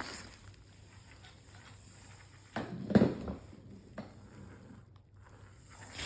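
Handling noises from unboxing dolls: faint rustling and small knocks, with one louder bump about three seconds in.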